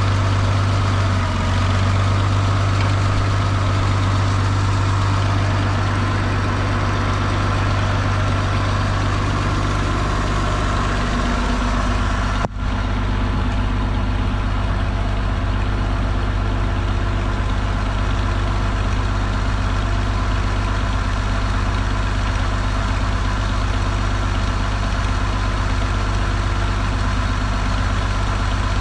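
Farmall 560 tractor's six-cylinder engine idling steadily while it warms up, just started on a newly fitted HEI electronic-ignition distributor with new coil and wires. There is a short break in the sound about twelve seconds in, after which the idle runs on at a slightly different note.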